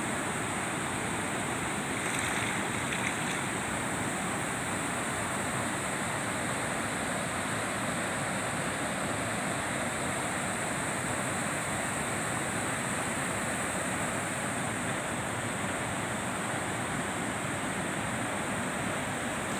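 Steady rush of water pouring through a concrete weir's spillway, an even noise with no breaks.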